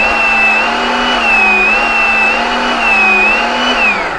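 Enerpac electric hydraulic torque-wrench pump running with the advance button held, its motor pitch rising and falling slightly in a repeated pattern: a function test of the wrench at the pressure just set. The motor starts to wind down at the very end.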